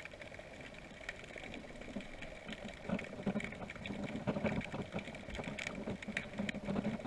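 Faint, muffled underwater sound: a low steady hum with scattered clicks and taps, a little louder from about three seconds in.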